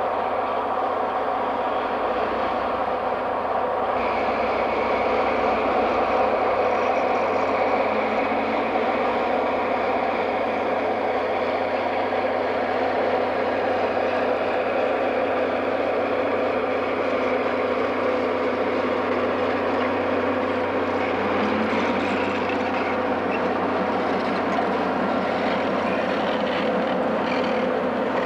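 EMD FP7A diesel locomotive with its 16-cylinder 567 engine running steadily as it pulls a passenger train toward and past the listener. The pitch of the engine shifts a little about 21 seconds in, and the passenger cars roll by near the end.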